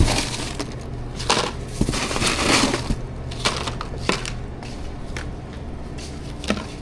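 Tortilla chips crunching and crackling in irregular bursts, over a low steady hum.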